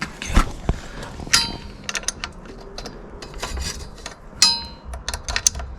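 Metal hand tools and bike parts clinking and knocking during work on a pit bike's engine, with two sharp ringing metal clangs, one about a second and a half in and another about three seconds later.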